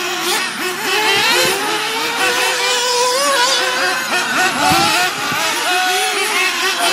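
Several nitro RC buggies racing, their small two-stroke glow-fuel engines buzzing and overlapping, each rising and falling in pitch as the cars accelerate and brake through the track.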